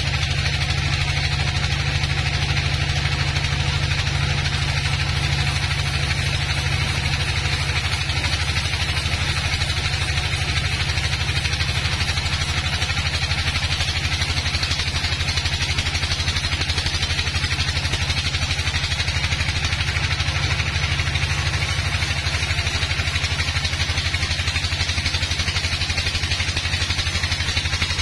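Band sawmill running steadily as it saws a dry log: a constant low machine drone with a hiss from the blade cutting.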